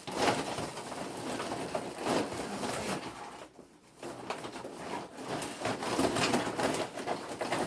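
Packing material being pulled and rustled out of a shipping box around a planter, with irregular crinkles and scrapes and a short pause in the middle.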